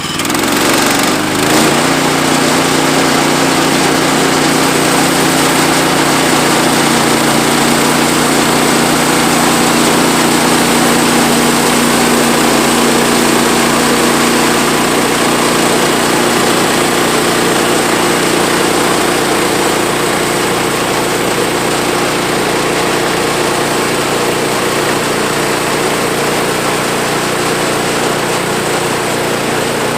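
Woodland Mills HM126 portable band sawmill running, its small engine speeding up over the first couple of seconds and then holding a steady high speed.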